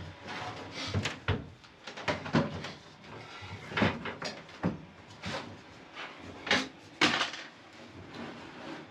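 Irregular knocks and clatter of hand work as panels and tools are handled, with several sharp knocks, the loudest about four and seven seconds in.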